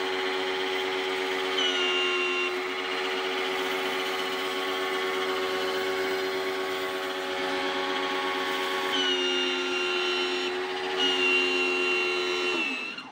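Black & Decker BW15 electric pressure washer running, its motor and pump giving a steady hum, with a higher whine that comes and goes a few times. Near the end the motor winds down and stops. The unit is being tested before repair of its pressure kit, automatic switch and seals.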